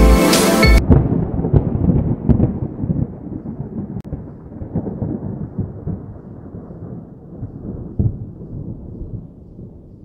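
Background music cuts off just under a second in, giving way to a low thunder-like rumble with a few sharp cracks that slowly fades away, an edited-in sound effect accompanying the channel's logo.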